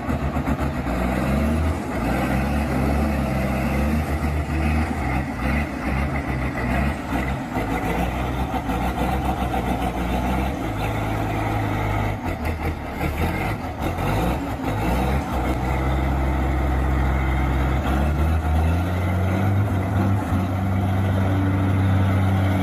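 Heavy vehicle's engine running, its pitch shifting up and down several times and settling higher near the end.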